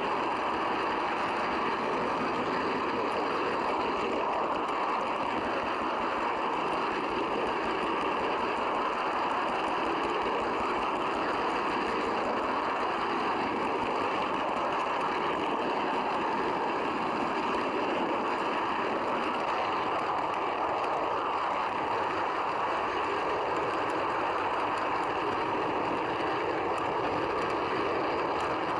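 Model train running along the track: a steady rolling rumble of the coach's wheels on the rails, heard from a camera riding on the coach.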